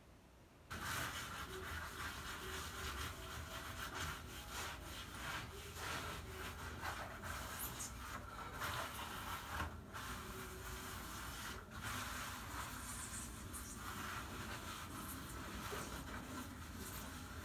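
Grout being rubbed by hand across a broken-tile mosaic surface: a continuous gritty scraping and rubbing that starts abruptly just under a second in, with brief breaks between strokes.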